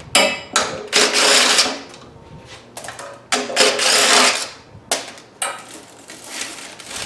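Hand tools working the bolts that hold the pump to a Honda GX160 engine: two stretches of fast rattling, about a second each, with a few sharp metallic knocks between them.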